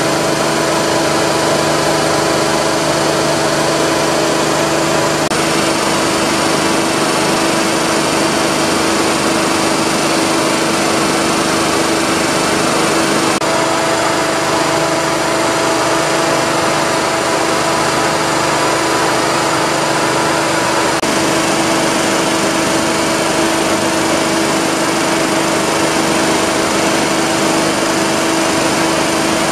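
J.P. Sauer WP311L marine piston air compressor running steadily, an even mechanical hum with no pauses or changes in speed.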